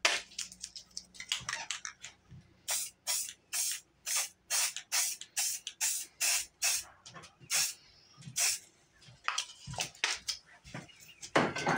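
Aerosol spray paint can sprayed in many short hissing bursts in quick succession, each under half a second.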